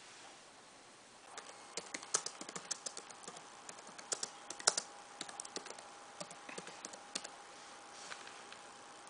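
Typing on a Toshiba laptop keyboard: a quick run of key clicks starting a little over a second in and going for about six seconds, with a few stray presses after. A faint steady tone sits underneath.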